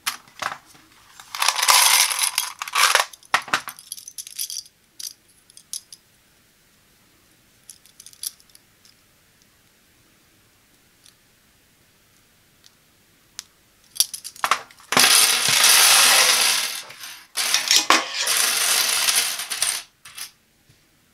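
Dozens of small plastic sewing clips with metal springs clattering against each other and onto a hard tabletop. There is a burst about a second in, then a few light clicks, then a longer clatter over the last several seconds as they are spilled and spread out.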